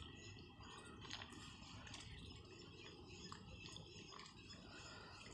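Faint, irregular clicking and slurping of ducks dabbling, their bills sifting through shallow water.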